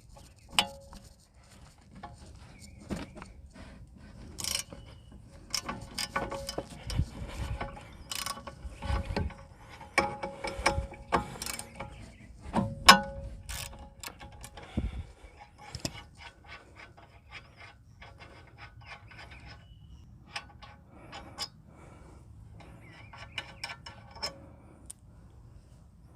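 Ratchet and 14 mm socket clicking while the rear brake caliper bolts are undone, with irregular metal clinks and knocks, busiest in the first half.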